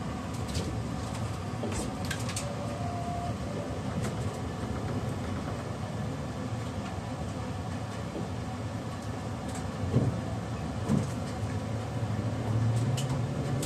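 Interior running noise of an E653 series 1100 electric train car: a steady rumble with faint steady tones from its IGBT-VVVF inverter motor drive, light clicks, and two knocks about ten and eleven seconds in.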